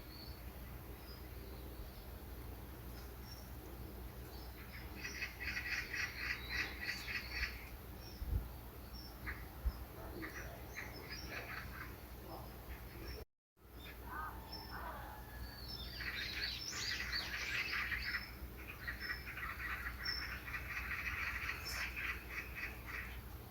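Small birds chirping in bursts of fast, rapid-fire chatter, the busiest stretches about a quarter of the way in and again in the second half. The sound cuts out completely for a moment just past the middle.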